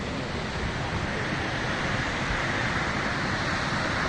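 Steady rushing of water flowing through Pitlochry Dam, an even, unbroken wash of noise that grows slightly louder.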